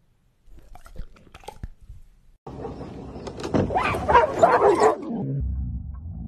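A few faint wet chewing clicks from a dog eating close to a microphone, then a sudden outburst of several dogs barking excitedly, loudest in the middle and breaking off near the end. A low rumble follows as the pack runs past close by.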